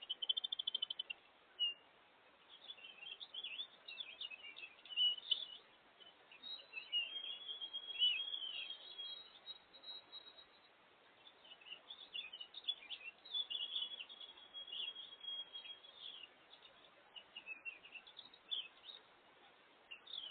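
Small songbirds chirping and calling, many short overlapping chirps and brief trills, with a thinner lull about halfway through.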